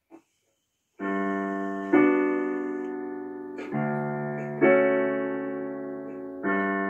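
Slow background piano music that comes in about a second in, with held chords struck every second or two and fading between strikes.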